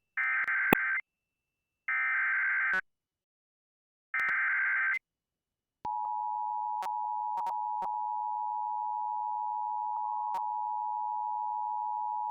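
Emergency Alert System activation: three short bursts of screeching digital SAME header data, then the steady two-tone EAS attention signal that precedes a severe weather warning, with a few sharp clicks over it.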